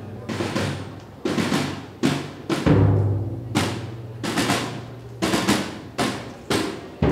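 Marching snare drum and bass drum playing a parade cadence: crisp snare strikes about twice a second, with deep bass drum hits, the strongest a little under three seconds in.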